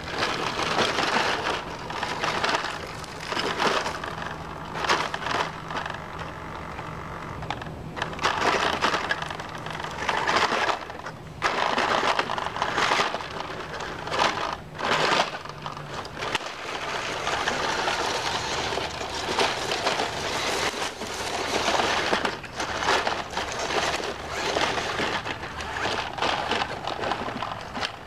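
New Bright RC rock crawler's electric drive motor whirring in stop-and-go bursts as the truck climbs over stones, with its tires crunching on rock, dirt and dry leaves.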